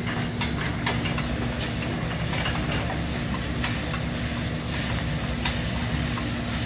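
Food sizzling on a hibachi flat-top griddle: a steady frying hiss, with a few light clicks scattered through it.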